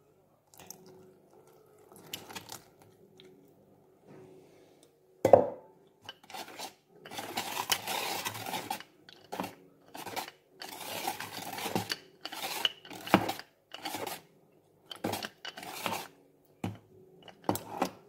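Electric hand mixer with a whisk beater beating egg-and-sugar batter in a plastic bowl: a faint steady motor hum with intermittent noisy bursts of a second or two and a few sharp knocks from the whisk against the bowl.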